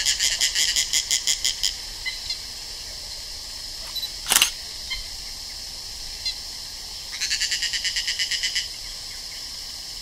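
Forest ambience: two bursts of a rapid, evenly pulsed high trill, about eight pulses a second and each a second and a half to two seconds long, one at the start and one about seven seconds in, over a steady high hiss. A single sharp click comes about four seconds in.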